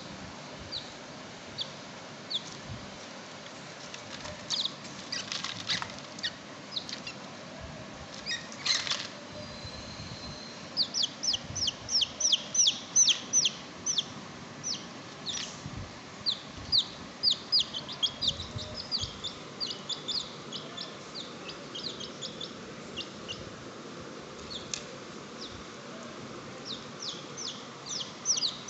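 Baby chicks peeping in quick runs of short, high, falling peeps, in several bouts, with a few sharp knocks from the wire cage early on.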